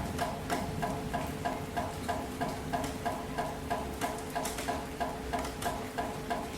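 Light rain hiss after the thunder has passed, with a steady rhythmic pulsing of about four beats a second running under it and a faint steady hum.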